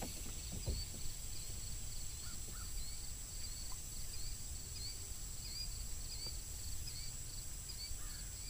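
Steady high drone of insects, with a small chirp repeating about twice a second, over a low rumble.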